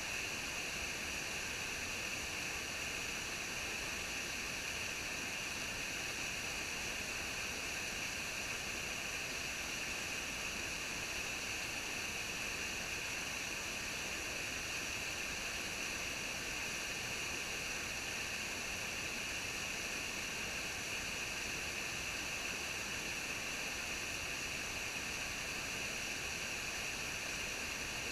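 Rushing water making a steady, even hiss with no change in strength.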